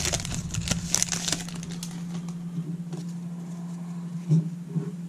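Foil wrapper of a baseball card pack crinkling as it is crumpled in the hands for the first two seconds or so, then quieter rustling as the cards are handled. A steady low hum runs underneath.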